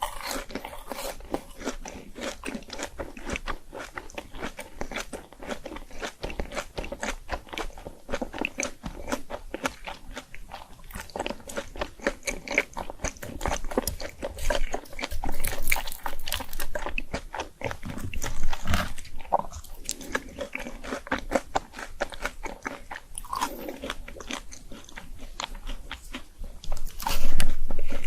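Close-miked eating of crunchy fried food: crisp bites and steady, crackly chewing, with a louder crunch near the end.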